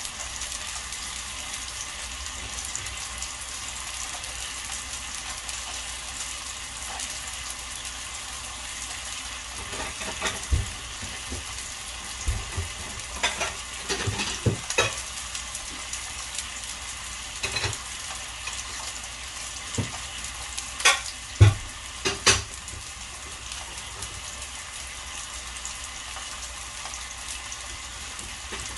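Beef steaks and vegetables sizzling on a grill pan, a steady hiss, with scattered sharp clicks from about a third of the way in, the loudest a few close together a little past the middle.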